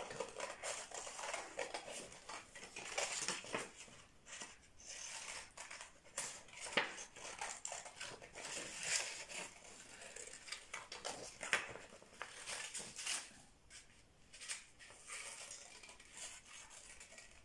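Scissors cutting around an outline in a sheet of white drawing paper: a run of short, irregular snips.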